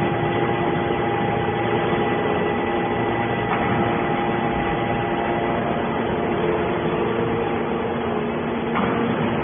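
Hydraulic scrap-metal baler running: a steady mechanical hum with several constant tones, from the motor and hydraulic pump driving the press.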